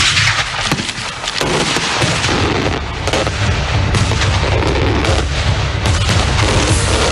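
Fireworks going off in a dense, continuous barrage of rapid bangs and crackles, loud throughout.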